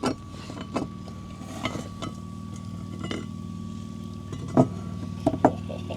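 Several sharp metal clinks and knocks as a cast iron pie iron is handled on the stove, the loudest two near the end, over the steady hum of the BioLite CampStove's fan.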